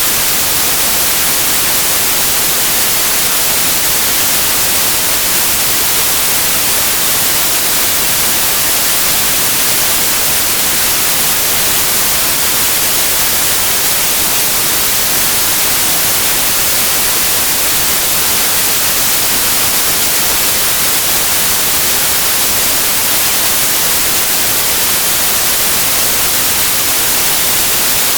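Pure white noise: a loud, steady hiss with no melody, rhythm or change, brightest in the treble.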